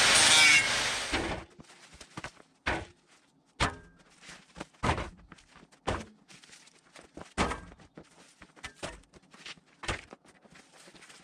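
Background music ends about a second in. It is followed by a quiet stretch of scattered dull thuds, roughly one every second or so, at an uneven pace.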